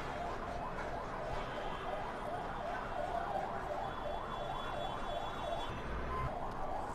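A faint siren wailing, its pitch swinging quickly up and down over and over, above a low background hiss.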